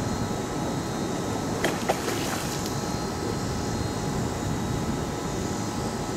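Steady low rumbling noise, with a short splash of water at the landing net about two seconds in.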